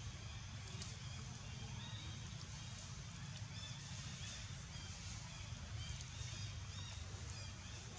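Outdoor ambience: a steady low rumble with faint, short high chirps scattered throughout.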